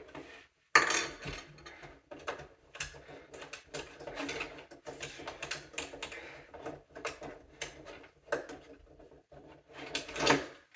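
Rotary telephone dial being turned and spinning back several times, with mechanical clicking and ratcheting.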